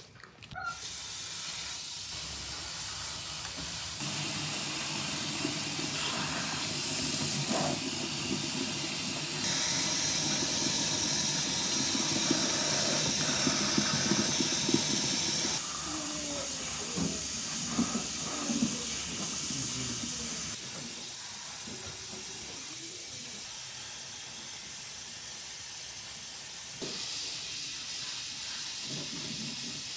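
Kitchen tap water running and splashing over fresh herbs in a steel colander as they are rinsed by hand. The hiss of the water steps up and down in level several times.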